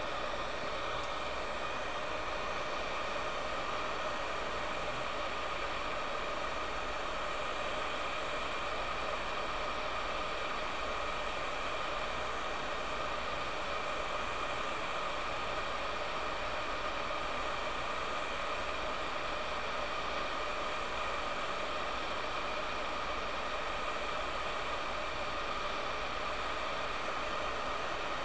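Heat guns blowing hot air steadily onto a circuit board from above and below, a constant whir with a faint hum in it, while they heat the solder of the HDMI port to free it.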